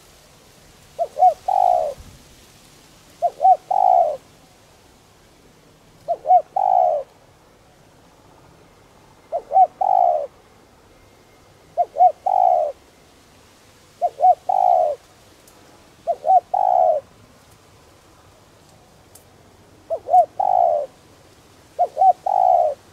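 Spotted dove cooing its song over and over, of the 'đồng' voice type that Vietnamese dove fanciers grade by: each phrase two short coos then a longer one, repeated nine times, about every two to three seconds.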